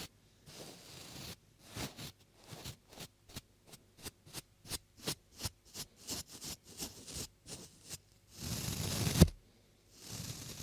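Close-miked scratchy rubbing and brushing strokes on a binaural microphone's ears: a run of short strokes, two or three a second, then a longer swelling rub that ends in a thump near the end.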